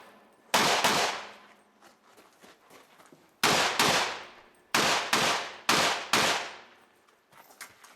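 Five rifle shots fired at an uneven pace, one about half a second in and four more in quick succession between about three and a half and six seconds in. Each shot cracks out loudly and trails off over about a second.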